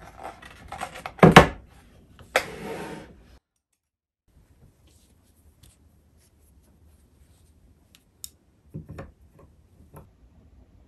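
Hands handling fabric and a plastic embroidery hoop on a table. A sharp knock comes about a second in and a short rustle just after. After a pause there are a few faint taps and clicks from the hoop and its stand.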